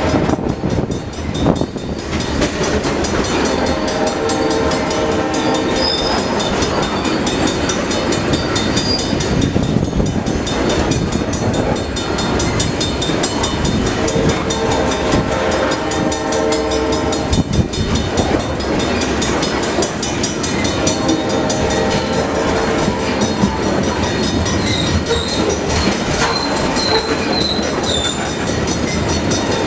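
A train passing close by, its wheels clattering over the rail joints with a loud continuous rumble. The locomotive's horn sounds in long blasts three times.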